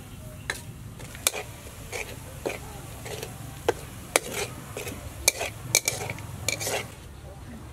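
Metal spatula scraping and knocking against the inside of a steel wok while stirring minced garlic frying in oil. The strokes come in irregular sharp clicks and scrapes, about a dozen of them.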